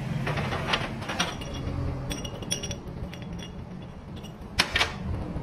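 Metal parts of a manual truck transmission clinking and tapping as they are handled on a workbench, with a louder double clink near the end, over a steady low hum.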